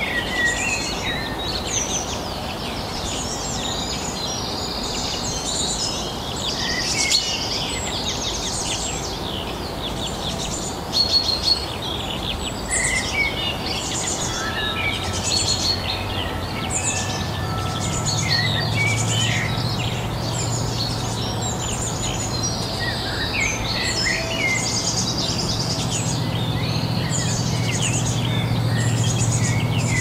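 Several songbirds singing at once, with overlapping chirping phrases throughout. A low steady hum comes in about halfway through and grows louder toward the end.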